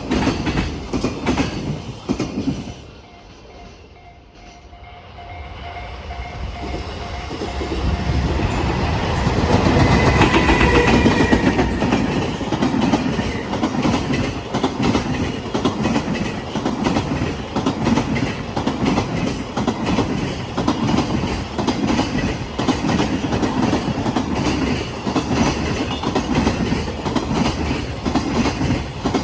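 Freight train wheels clattering over rail joints. The clatter dies down about three seconds in, builds again over several seconds with a short tone as a train nears, then settles into a steady, rhythmic pounding of wagon wheelsets over the joints.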